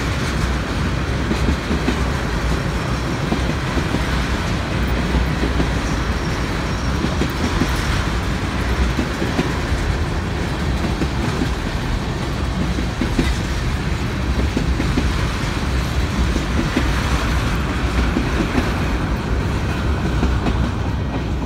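Freight train of tank cars rolling past at steady speed: a continuous low rumble of steel wheels on rail, with irregular clacking as the wheels cross the rail joints.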